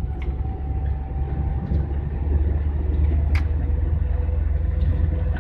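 GAZelle van driving at highway speed, heard from inside the cab: a steady low rumble of engine and road noise with a faint steady whine over it. A single sharp tick sounds about three and a half seconds in.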